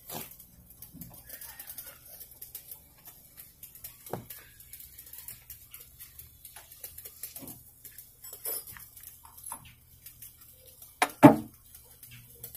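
Scattered light metal clinks and taps from parts being handled and fitted on the head of a 6-bolt oil expeller, with one brief louder sound about 11 seconds in.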